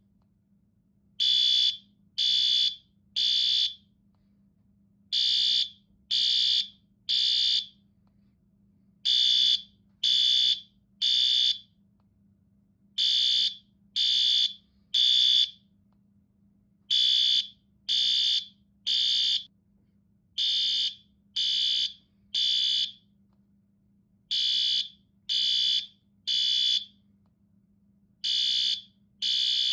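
Fire alarm sounding in the temporal-three evacuation pattern: three high-pitched beeps about a second apart, then a pause, the cycle repeating every four seconds. A faint steady low hum runs underneath.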